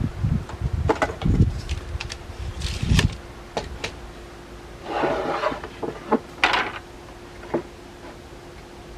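Tools and parts being handled on a workbench: scattered knocks and clicks, a few low thumps in the first three seconds, and two short scrapes a little past the middle, over a faint steady hum.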